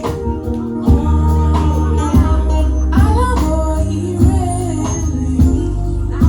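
Gospel choir singing an anthem over a band with a heavy bass line and regular drum beats.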